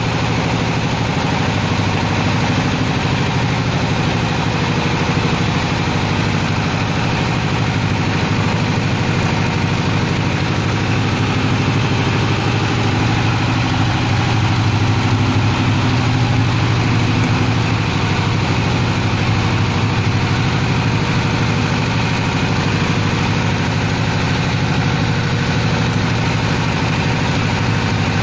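Fish-feed mixing machine running steadily under load, a constant motor hum with a low drone and a fairly even rumble, with no change in speed.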